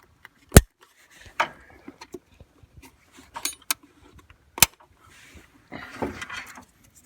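About five sharp clicks and knocks, with rustling in between, from hands handling the truck's distributor and ignition parts.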